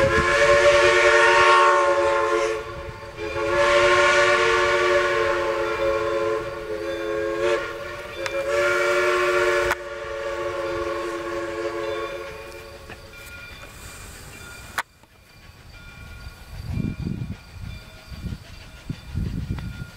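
Southern Railway No. 401 steam locomotive's chime whistle sounding a steady chord of several notes: one long blast of about two and a half seconds, then a longer blast that fades out. After a sudden cut, a low gusty rumble.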